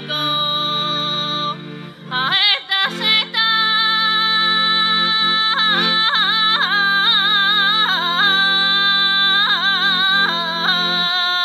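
Bulgarian folk singing by a small group of women in full voice, their lines heavily ornamented with quick wavering and shaking of the pitch, over steady accordion chords. About two seconds in, the chords drop out briefly under a few short sliding vocal cries before the accordion and voices come back together.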